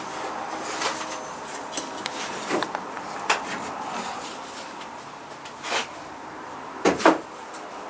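Ceramic kiln posts being set down and shifted on a kiln shelf: a series of light knocks and scrapes of refractory ceramic on ceramic, with the loudest pair of knocks near the end.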